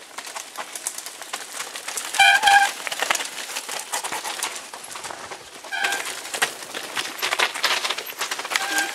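Mountain bikes rattling and clicking over a rough, stony forest trail. Three short high-pitched calls ring out, about two, six and nine seconds in, the first the loudest.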